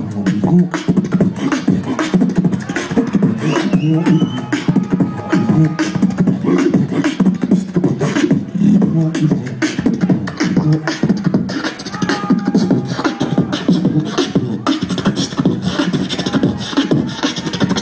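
Live human beatboxing through a concert PA: a fast run of mouth-made kicks, snares and clicks over a low hummed bass pattern.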